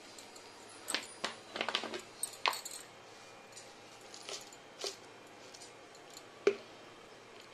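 Scattered short clinks and knocks of containers being handled on a kitchen counter, a glass jar among them. The loudest comes about six and a half seconds in.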